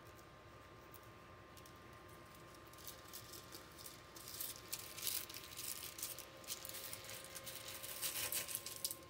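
Small metal screws and thumb nuts clinking together and a plastic parts bag crinkling as a hand rummages through it, starting about three seconds in and going on in irregular bursts.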